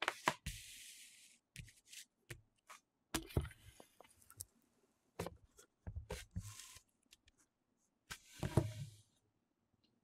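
A cardboard box and a paper instruction leaflet being handled and set down on a wooden desk: scattered taps and knocks with short brushing, sliding rustles, the longest near the start and again near the end.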